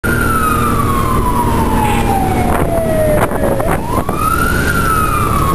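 Fire truck siren wailing over the low rumble of the truck's engine and road noise. The siren's pitch falls slowly for about three seconds, then sweeps quickly back up and begins to fall again. A few short knocks come about midway.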